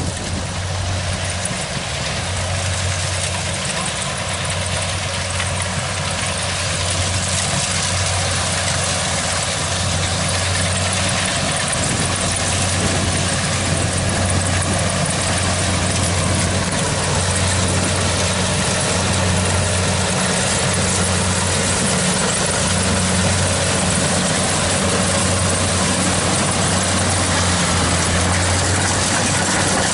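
Kubota DC70 Plus combine harvester's diesel engine running steadily with a low drone, growing a little louder over the first several seconds and then holding level.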